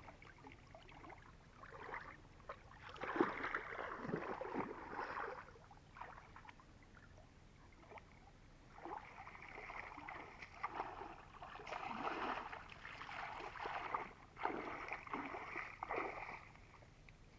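Water splashing and sloshing in irregular bursts, as when someone moves through shallow water or works it with the hands.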